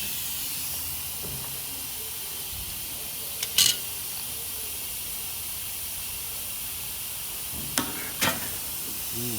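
A steady hiss with a few sharp clicks from channel-lock pliers working a patch plug through a tire: one or two about three and a half seconds in, and two more near eight seconds.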